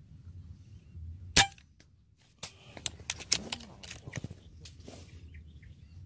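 A single air rifle shot, one sharp crack with a brief metallic ring about a second and a half in. It is followed about a second later by a quick run of sharp metallic clicks and knocks.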